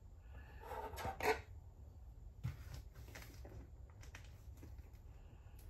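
Scattered light clicks and taps from hands handling a cardboard shipping box, over a low steady hum.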